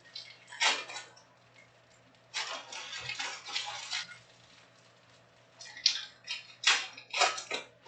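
Trading-card packs and cards being handled: irregular bursts of crinkling and rustling from foil wrappers and card stock, in three spells with short quiet gaps between.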